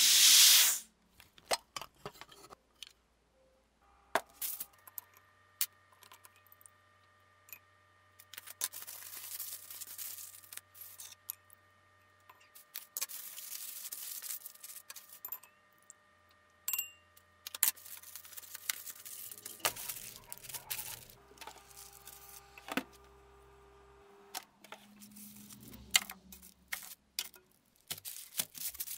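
A loud hiss of air rushing through the fitting into a vacuum chamber, cutting off within the first second. It is followed by aluminium foil crinkling and rustling in irregular bursts of small crackles as it is folded around wood blocks.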